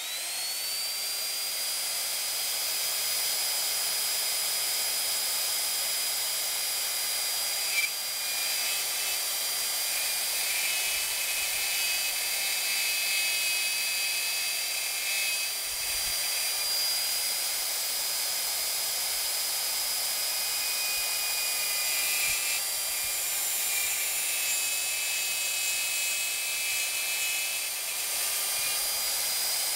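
Rockwell Speedmatic electric router spinning up, then running at a steady high whine as a round-point bit is plunged and guided through hard white oak to carve letters. The pitch dips slightly now and then as the bit bites into the wood.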